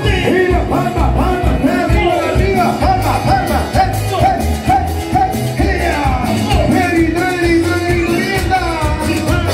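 Live Latin dance band music played loud through PA speakers, with a steady beat and a melody line.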